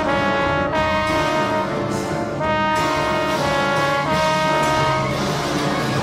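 Wind ensemble music from a concerto for trombone and wind ensemble, with brass to the fore: held chords that move on to a new chord about every two-thirds of a second.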